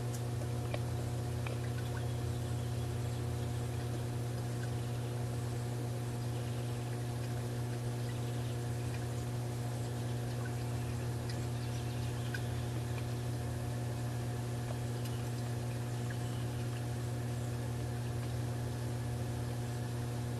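A steady electric motor hum, low and unchanging, with a row of evenly spaced higher overtones over a faint hiss. A few light ticks come through now and then.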